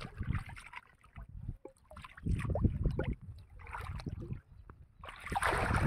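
Shallow pond water sloshing and splashing as a fishing net is lifted by hand and the wader's legs shift, in irregular bursts with short pauses.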